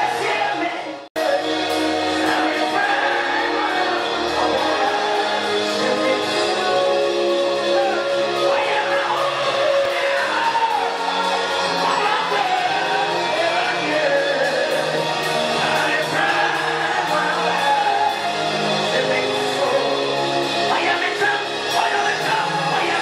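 Live gospel worship music: two men singing and exhorting into microphones over a church band. The sound cuts out for an instant about a second in.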